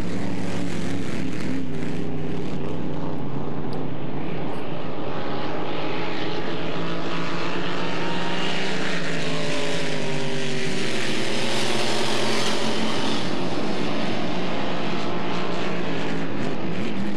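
Flat-bottom racing boat's supercharged inboard engine running at speed across the water, several engine tones at once; it swells to its loudest a little past the middle as a boat passes close by, then eases off.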